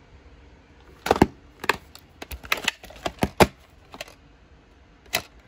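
Plastic clamshell VHS case being opened and the cassette handled: a quick run of sharp plastic clicks and knocks, starting about a second in.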